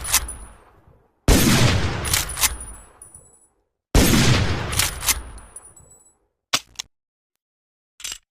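Winchester Model 1895 rifle sound effect: two shots about two and a half seconds apart, each with a long fading echo and followed by sharp metallic clacks, the lever action being cycled. A few lone clicks come near the end.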